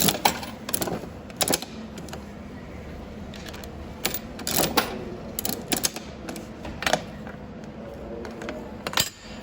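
Coin-operated turn-crank vending machine being worked: a quarter going in and the crank turned, giving a series of sharp, irregular metallic clicks and clacks.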